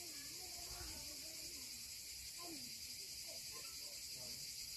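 Quiet outdoor garden ambience: a steady, faint high-pitched insect hiss, with faint distant voices now and then.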